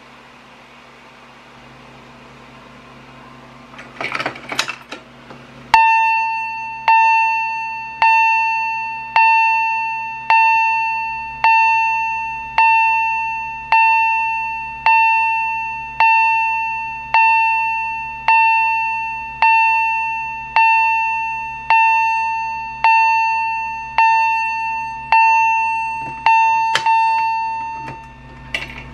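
Edwards 757-7A-CS Integrity chime strobe sounding its high-pitched fire-alarm chime: a single ding repeated a little slower than once a second, each ringing and fading before the next, about twenty in all, stopping just before the end. A brief clatter comes about four seconds in, just before the chiming starts.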